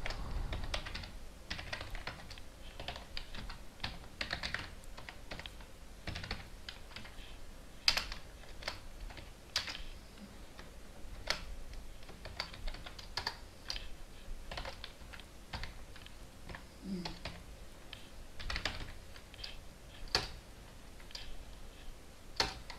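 Typing on a computer keyboard: a run of irregular key clicks, some keystrokes louder than others.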